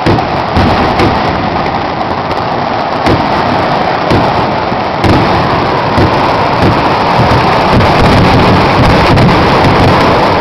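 Kerala temple fireworks (vedikkettu) going off in a dense, continuous barrage of explosions that merge into a thunder-like rumble. The barrage grows louder about halfway through.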